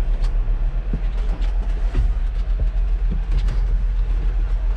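Low, steady rumble of tractor engines running close by, with scattered light clicks and knocks.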